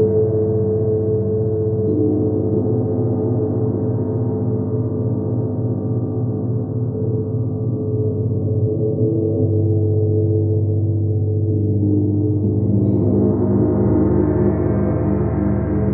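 Two large hanging gongs, a dark-rimmed chau-style gong and a bright wind gong, played softly with felt mallets in a continuous swelling wash of deep, overlapping, sustained tones, without sharp strikes. About thirteen seconds in the sound brightens as the wind gong is played.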